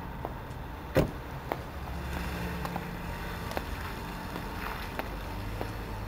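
A car door shut with a single solid thud about a second in, then a few sharp footstep clicks on paving, over a low steady rumble.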